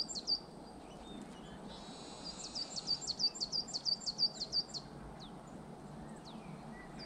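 Coal tit singing: runs of thin, high, quickly repeated notes, about four a second. One run ends just after the start, another of about ten notes begins about two seconds in, and a couple of faint single notes follow.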